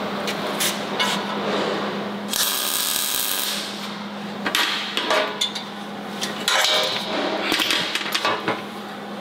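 A welding arc crackling for about a second, a tack weld on the steel frame piece about two seconds in, then a run of metal clanks and taps as the parts are handled. A steady low hum runs underneath.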